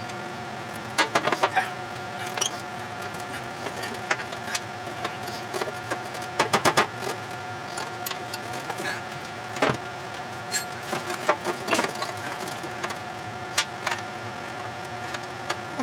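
Bursts of quick metallic clicking and clinking, as from hand tools and loose metal parts being worked, over a steady mechanical hum.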